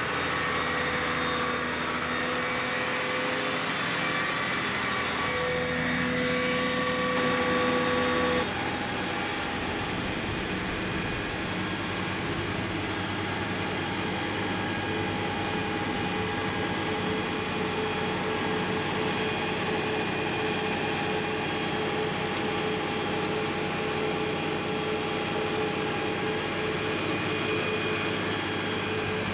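A fire engine's motor running steadily at raised revs to drive its pump, a continuous drone with several held tones. About eight seconds in, the pitch and level shift down and then hold steady.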